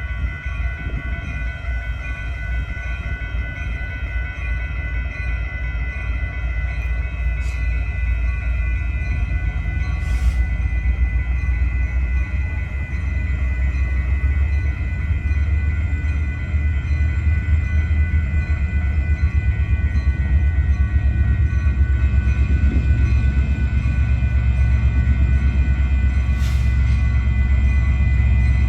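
Train rolling past, a low rumble that grows steadily louder, with several steady high-pitched ringing tones held over it.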